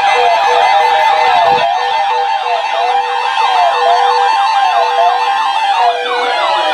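Several sirens sounding over one another, their pitch sweeping up and down in quick repeated arcs, layered with guitar music.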